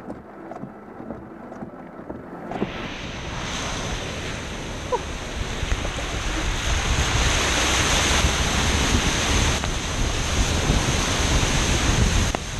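Car tyres driving through deep standing water on a flooded street, throwing up spray, heard from a camera on the outside of the car with wind on the microphone. A loud, steady rushing noise cuts in about two and a half seconds in and grows louder over the next few seconds.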